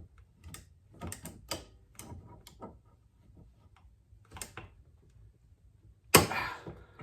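Hand tools working on a push-mower wheel's metal bushing: scattered light clicks and taps, then one loud knock about six seconds in.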